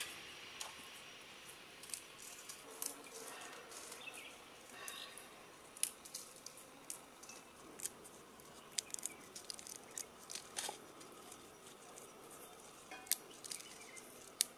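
Dried red chillies being snapped and broken by hand over a steel plate, with papery shallot and garlic skins rustling: faint, irregular crisp snaps and crackles over a soft steady hiss.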